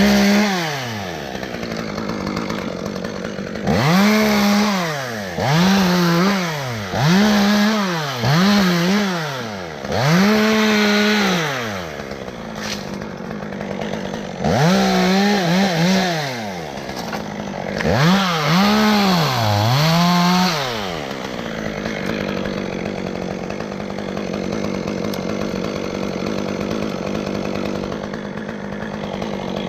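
Chainsaw revved in a series of bursts, its pitch climbing and dipping with each, as it cuts limbs during a tree removal. It runs lower and steadier for the first few seconds and the last several seconds.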